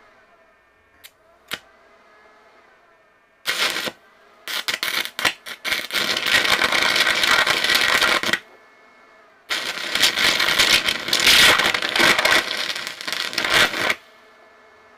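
Stick-welding arc tacking steel rebar: two sharp clicks, then the arc strikes about three and a half seconds in, splutters as it catches and burns with a loud, steady crackle and hiss for about four seconds. It stops briefly, then strikes again and crackles for about four and a half seconds more.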